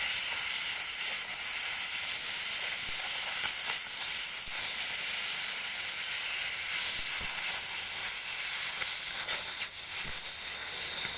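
Oxy-acetylene cutting torch hissing steadily, its oxygen jet burning through a rusty steel shaft, with a few faint ticks.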